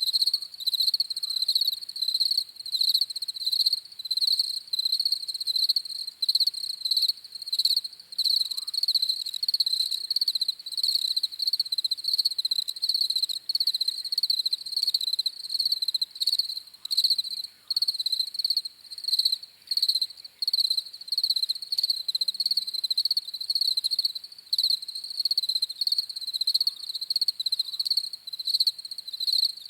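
Crickets chirping: a steady, high-pitched trill made of quick repeated pulses, with a few faint, short lower calls in the background.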